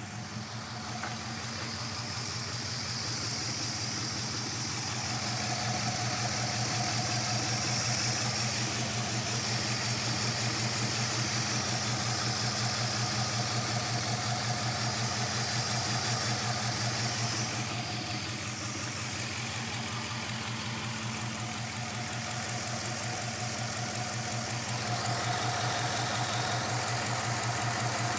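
Chrysler 5.7-litre Hemi V8 idling with a fast, steady pulse, running rough. It gets louder about five seconds in, drops back near eighteen seconds, and rises again near twenty-five seconds.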